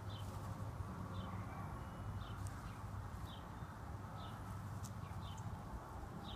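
An animal calling faintly outdoors: short, high, slightly falling chirps, about one a second, over a steady low hum.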